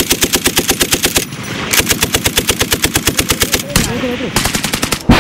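Automatic gunfire in rapid bursts of evenly spaced shots. One burst runs until about a second in, a longer one lasts about two seconds, and a short one comes near the end. A single sharp bang closes the window.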